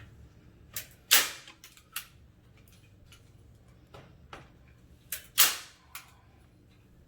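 Staple gun firing twice, about four seconds apart, driving staples through chicken wire into wood. Each sharp snap has lighter clicks just before and after it.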